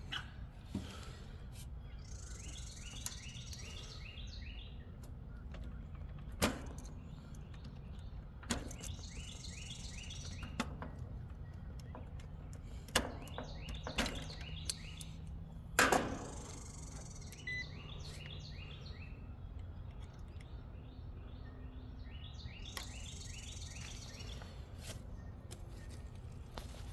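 A songbird singing in repeated bouts of rapid high chirping trills over steady outdoor background noise. A few sharp clicks and knocks come between the bouts, loudest about six, thirteen and sixteen seconds in.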